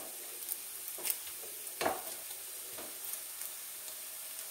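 Tomato and onion masala sizzling in a pan as it is stirred, a steady hiss with scattered crackles and a few soft scrapes or clicks: the paste has cooked down and its water has dried off.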